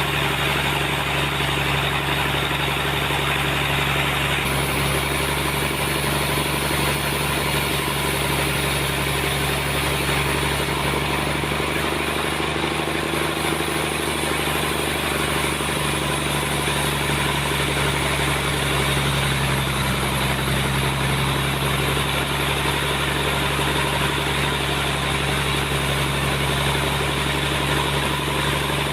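Sawmill's engine running steadily at a constant speed, a continuous hum with a little hiss above it.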